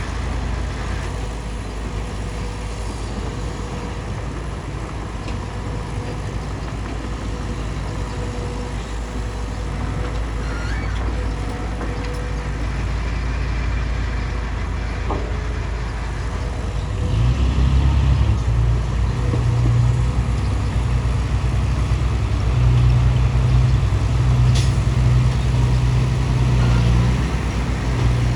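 Bulldozer's diesel engine running steadily. It grows louder and deeper about two-thirds of the way in, as the engine comes under more load.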